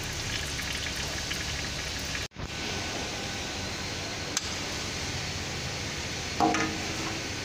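Steady hiss of engine oil draining from the oil filter housing through a plastic drain hose. The hiss breaks off briefly a little over two seconds in, there is a single sharp click about two seconds later, and a short squeaky sound near the end.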